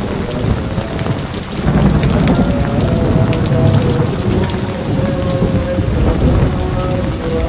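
Heavy rain pouring down, a dense steady hiss of water on roofs and the flooded ground. A deep rumble swells underneath about a second and a half in and stays.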